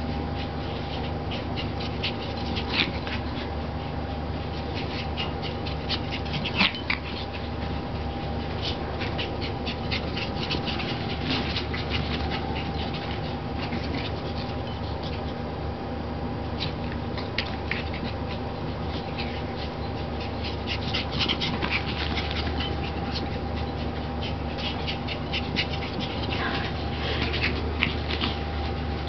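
Two small dogs, a Pomeranian and a Yorkshire terrier, playing chase: scattered quick scuffles and clicks of scrambling paws with the odd dog vocalisation, over a steady hum.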